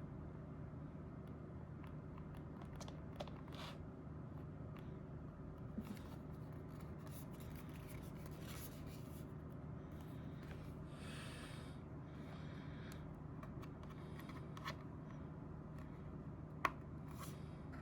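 SwitchBot Bot's small geared motor whirring briefly a few times as its arm moves, with a few sharp clicks, over a steady low hum.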